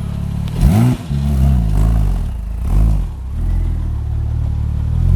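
Gemballa Avalanche's Porsche 997-based flat-six engine idling loudly. It is blipped sharply about a second in, then revved a few more times, more lightly.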